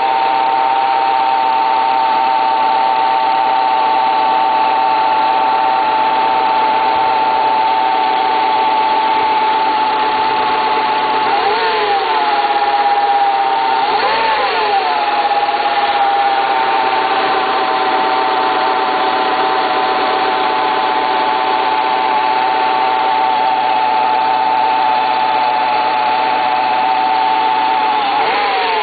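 Renault Scénic 1.8 engine running cold, with a steady high tone over the engine noise. The pitch briefly rises and falls three times, with short blips of the revs.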